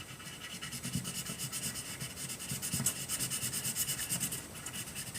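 Colouring by hand on paper: quick, rhythmic back-and-forth strokes of a crayon or pencil scratching across a sheet, easing off near the end.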